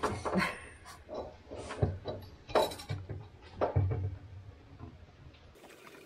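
A few sharp knocks and clunks amid rustling handling noise, the sound of hands-on work with parts and tools.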